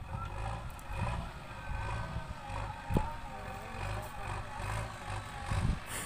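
JCB 3DX backhoe loader's diesel engine running as the machine drives with a loaded front bucket, a steady pulsing rumble. A sharp knock about three seconds in.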